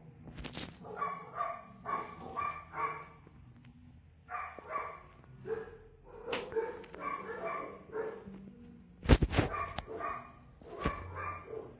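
A dog barking in quick runs of short barks and yips, with a few sharp knocks about nine seconds in.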